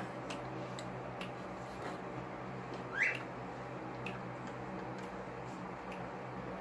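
Quiet room tone with a low steady hum and faint scattered clicks of handling at the table. A single short rising squeak comes about three seconds in.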